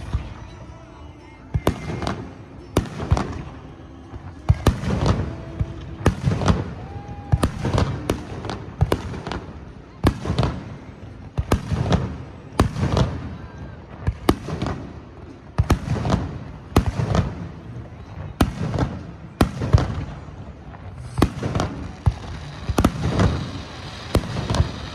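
Aerial fireworks going off in a rapid, irregular barrage, sharp bangs and booms, often several a second, throughout.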